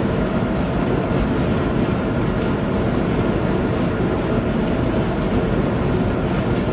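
A steady rushing rumble, heaviest in the low end, with faint soft ticks on top.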